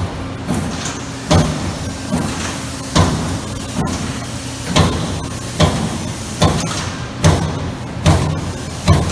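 Amada Vipros 358 CNC turret punch press punching sheet metal: sharp hits at an even pace, about five every four seconds, over a steady low machine hum.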